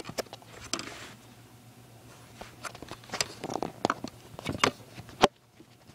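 Handling noise from an iPad held in the hands: fingers rubbing and tapping on the tablet close to its microphone, with scattered small clicks and a sharp click about five seconds in.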